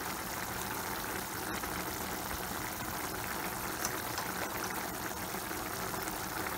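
Chicken, mushroom and pepper sauté simmering in its own juice in a frying pan over medium heat: a steady sizzle with a couple of faint pops.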